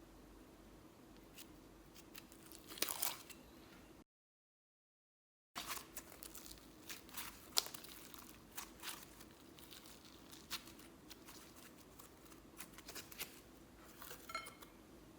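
Slime being worked by hand, giving scattered small sticky clicks and crackles, with a brief squeak near the end. The sound drops to dead silence for about a second and a half some four seconds in.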